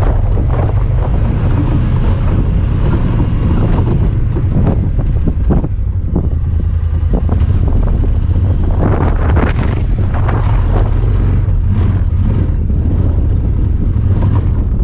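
Honda Talon 1000R side-by-side's engine running steadily while driving over rough ground, with wind buffeting the microphone and frequent clicks and knocks throughout.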